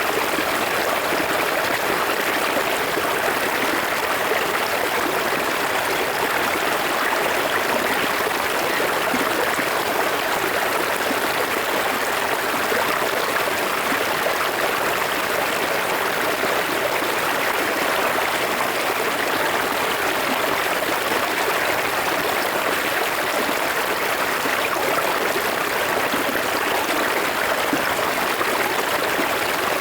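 A river flowing over rocks, recorded close up: a steady rush of water with trickling and gurgling, even in level throughout.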